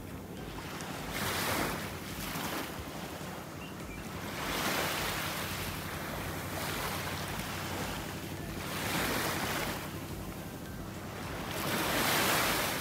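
Small waves washing up on a sandy beach, the rush of water swelling and falling back every three to four seconds.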